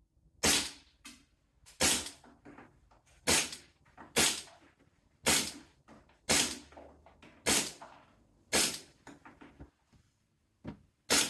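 Tokyo Marui M&P9L gas blowback airsoft pistol firing shots, about one a second, nine in all with a short pause before the last. Fainter clicks and knocks sound between the shots.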